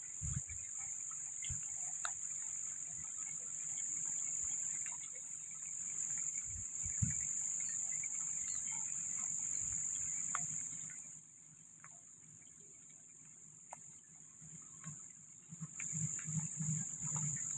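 Insects shrilling steadily at a high pitch; the chorus stops about eleven seconds in and starts again about five seconds later. Near the end a low rumble builds from the approaching diesel locomotive.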